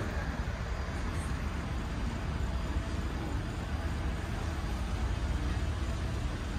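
Steady low rumble of store background noise, even throughout with no distinct events.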